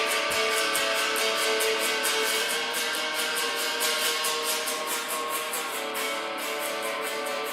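Instrumental passage of a song, with no singing: guitar over a steady, quick beat.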